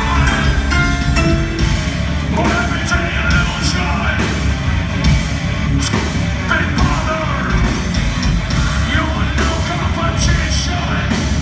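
Live rock band playing loudly through a club PA: drums, electric guitar, bass and keyboard, with a singer's voice over them.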